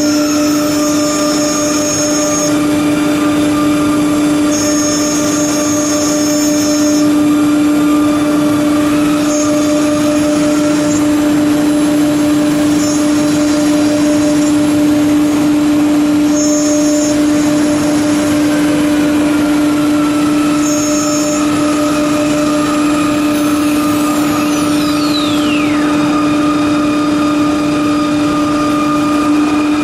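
CNC router spindle running with a steady, even whine while it mills grooves into an MDF door panel, over the hiss of the dust extraction. Short higher whines come and go every few seconds, and a falling whistle sweeps down about three-quarters of the way through.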